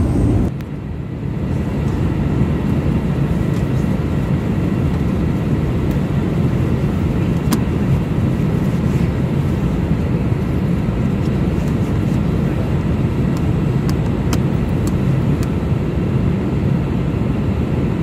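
Steady low cabin noise of an Airbus A319 in flight: engine and airflow noise filling the cabin, with a few faint clicks.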